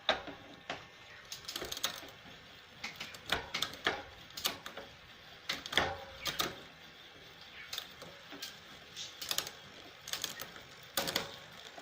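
Bicycle drivetrain worked by hand in a repair stand: irregular clicking and ticking of the chain over the rear cassette and derailleur, some clicks in short clusters. The gear indexing is being checked just after one turn of the adjuster.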